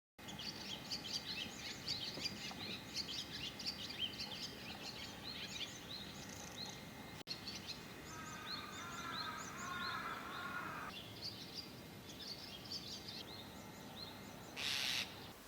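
Several small birds chirping and twittering, with a lower warbling call from another bird for a few seconds in the middle. A short burst of noise sounds near the end.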